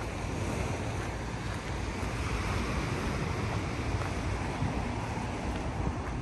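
Sea surf washing on the beach, mixed with wind on the microphone: a steady rushing noise.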